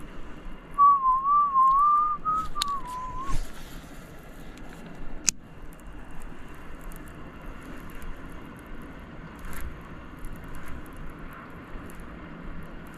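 A person whistling a short, wavering tune for about two and a half seconds, followed by a single sharp click about five seconds in.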